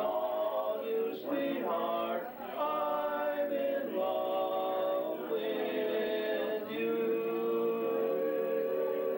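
A group of voices singing a slow song together, moving through short notes and then holding one long note from about five seconds in.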